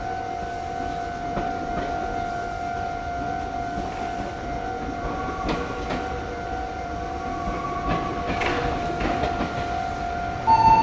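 Meitetsu electric train moving slowly, wheels clicking over rail joints, against a level-crossing alarm ringing on and on as a steady tone. A louder, higher tone sets in just before the end.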